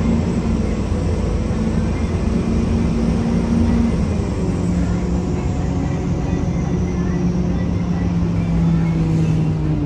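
Inside a 1993 Gillig Phantom transit bus under way: its Cummins ISM diesel and Allison B400R automatic run with a loud grinding drone, which the owner suspects comes from the transmission. The drone's steady tone steps down in pitch about four seconds in, over a low rumble and a faint high whine.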